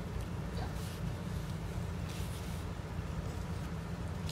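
Steady low background hum, with a few faint, brief soft rustles.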